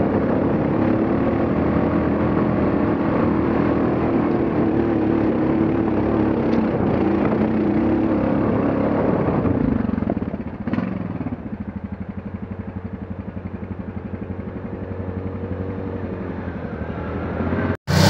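Off-road vehicle engine running hard for about ten seconds. It then drops to a quieter idle with an even, rapid pulse of firing beats, which cuts off abruptly near the end.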